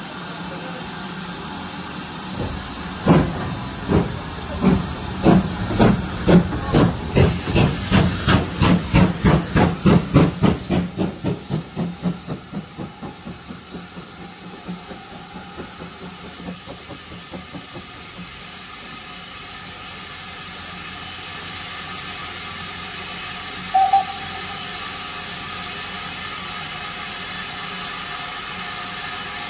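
Steam locomotive pulling away: its exhaust beats start slow and quicken to about three a second, then fade as it gets further off. A steady hiss follows, broken by one short whistle-like toot near the end.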